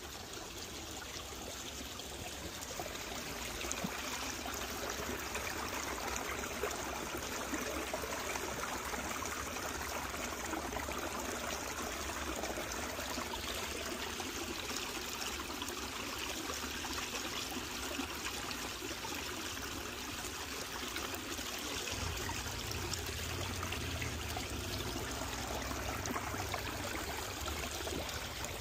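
Shallow creek water trickling steadily over and between rocks.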